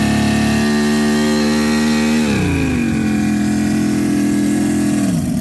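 Force 150 hp two-stroke outboard running on a dynamometer. It is revved up, held at a steady high speed for about two seconds, then eased back to a lower steady speed and dropped again near the end. It doesn't open up, which the mechanic puts down to the engine being gassed out on fuel that isn't burning.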